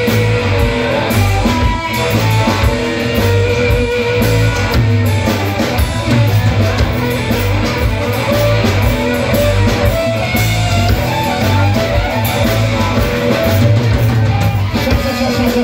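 Live rock band playing an instrumental passage: electric guitars and bass over a drum kit, with no singing.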